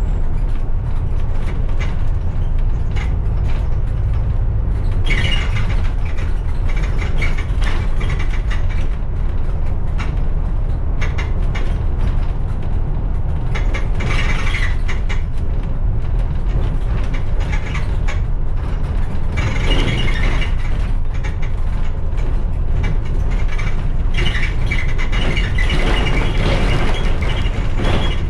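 A bus on the move: the engine and tyres make a steady low rumble, and the body and fittings rattle and click throughout. The rattling gets louder in several spells, near the start, around the middle and towards the end.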